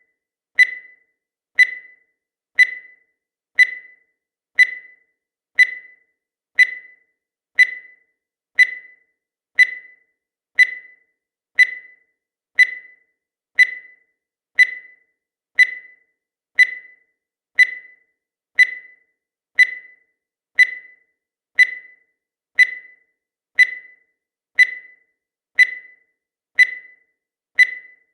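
Countdown timer sound effect: a short, high electronic beep once a second, each one fading quickly, repeating evenly.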